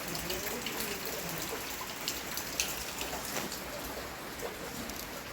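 Steady rain falling, with many separate drops striking close by as sharp ticks over an even hiss.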